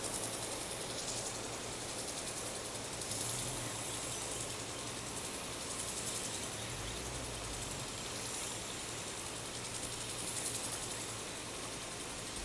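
Steady low engine hum of heavy equipment at a work site, under a high insect buzz that swells and fades every two to three seconds.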